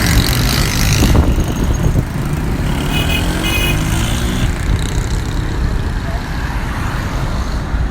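Road traffic: vehicle engines running, with one engine rising in pitch as it speeds up about two to four seconds in, and a few short high beeps around three seconds.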